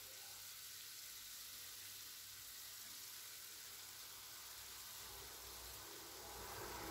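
Faint, steady sizzling of chicken pieces in a hot pan, the burner just switched off so the frying is dying down.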